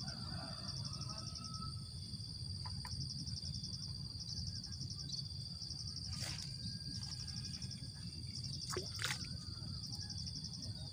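Insects trilling at a high, steady pitch in repeated bursts of rapid pulses, over a low outdoor rumble. Two sharp knocks come about six and nine seconds in.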